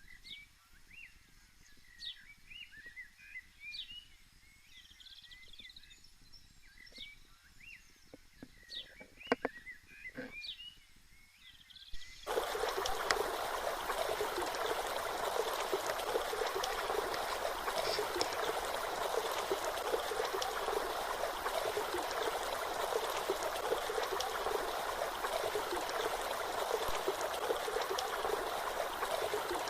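Small birds chirping over a quiet background, with a few sharp clicks; about twelve seconds in it cuts abruptly to the steady rush of a waterfall, which carries on unchanged.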